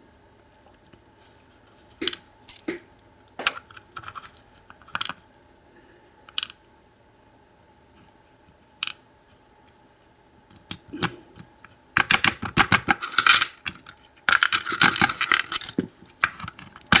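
Small metal key pins from an American 748 padlock's plug clicking and clinking as they are tipped out and dropped onto a hard surface: several separate clicks at first, then two stretches of rapid rattling near the end.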